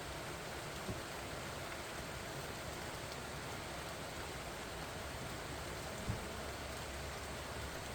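Steady rain falling on pumpkin vines and their broad leaves, an even hiss of drops. Two soft low thuds break through, one about a second in and a louder one about six seconds in.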